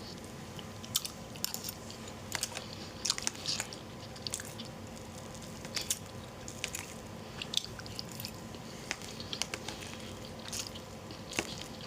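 Close-miked eating: irregular soft clicks and smacks of biting and chewing, over a faint steady hum.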